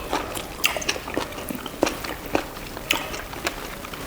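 Close-miked chewing of buffalo innards: wet mouth sounds with irregular sharp smacks and clicks, a few each second.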